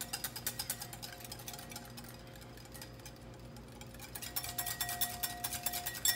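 Wire balloon whisk beating egg yolk in a glass bowl, its wires clicking rapidly against the glass, about six strokes a second, as oil is whisked in to emulsify mayonnaise. The tapping eases off in the middle and picks up again after about four seconds.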